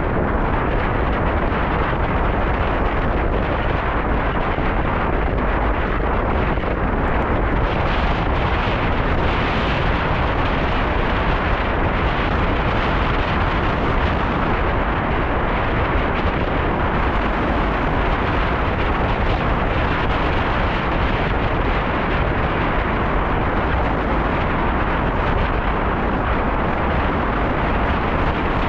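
Loud, steady wind noise buffeting the microphone of a camera on a moving bicycle: an unbroken rush of air, heaviest in the deep end.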